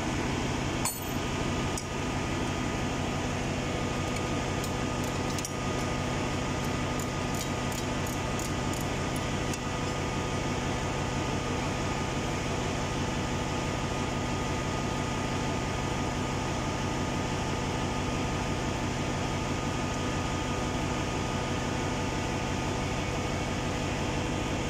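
Steady hum of ship's engine-room machinery, with several constant tones. Over it come a few light metallic clinks of tools on the exhaust valve's cooling water pipe flange, most of them close together between about seven and ten seconds in.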